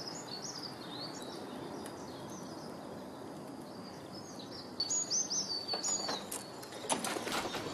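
Small birds chirping over a steady outdoor background hiss, with a louder run of chirps about five seconds in. Several sharp clicks come near the end.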